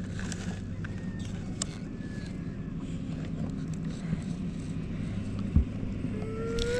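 Plastic toy excavator scraping and scooping gravel, with small stones clicking now and then over a steady low hum. A single sharp thump comes a little over a second before the end.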